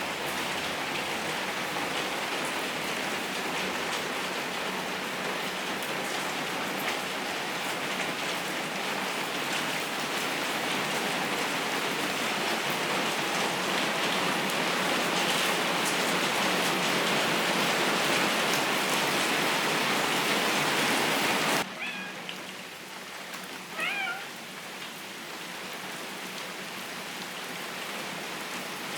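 Steady hiss of heavy rain from the storm that cuts off suddenly after about twenty seconds. In the quieter stretch a Maine Coon cat gives a few short meows, with one more near the end.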